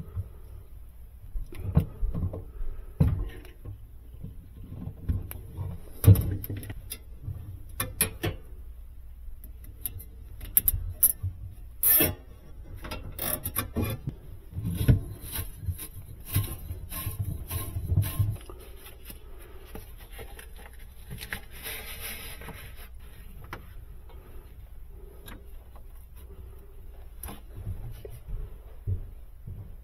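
Hands and tools handling the evaporator coil, wiring and fittings inside a refrigerator cabinet: scattered clicks, knocks and rubbing, busiest for the first eighteen seconds or so, then quieter.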